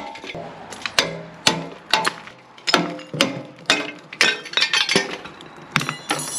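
Hammer blows on a cast iron soil pipe, about two a second, each a sharp metallic clank with a short ring, as the brittle cast iron is smashed apart.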